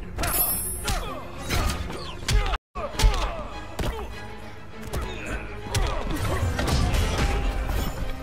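Fight-scene soundtrack from an action clip: rapid punches, thuds and crashes with swooshing effects over dramatic music. The sound cuts out for a split second about two and a half seconds in.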